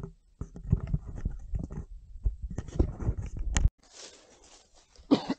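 Rustling and irregular low thumps of a body-worn camera being handled and rubbed against clothing, cutting off abruptly about three and a half seconds in. Then a faint rustle of footsteps through grass, and a brief voice sound near the end.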